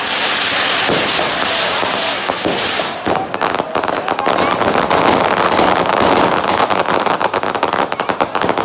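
Fireworks: a loud, steady hissing rush for about three seconds, then a fast string of crackling pops, many a second, running on to the end.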